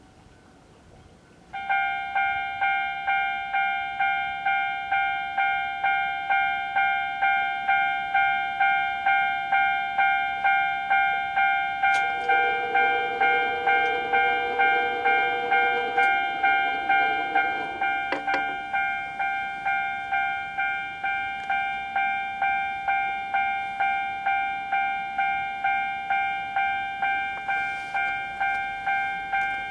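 A Japanese level crossing's electronic warning bell starts about a second and a half in and rings steadily at about two strokes a second, signalling that a train is approaching. About midway a lower steady tone with a hum joins for about six seconds.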